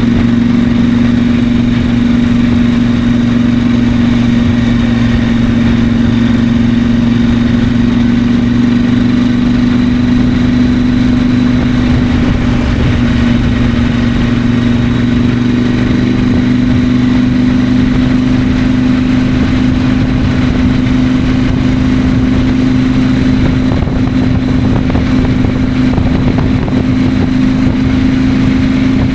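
KTM 890 Adventure's 889 cc parallel-twin engine running at a steady cruise, its pitch creeping slightly higher over the stretch, over a low rumble of wind on the microphone.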